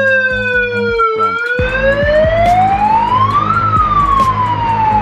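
Loud police-style electronic siren wailing: its pitch sinks for about a second, climbs steeply for over two seconds, then slides back down.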